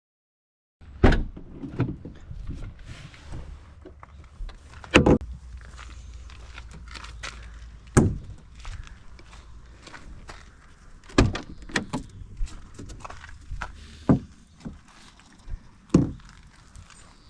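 A series of sharp knocks and thuds, about eight in all at irregular gaps, over a low steady hum that fades out about ten seconds in.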